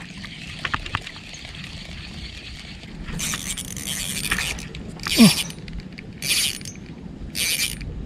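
Ryobi Smurfs 500 spinning reel being cranked, winding in line in several short bursts. A short, loud falling squeak comes about five seconds in.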